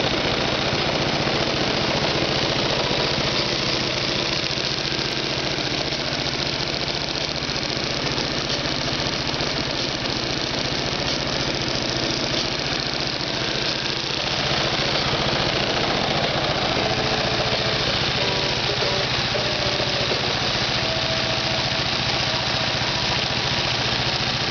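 CFMoto engine idling steadily.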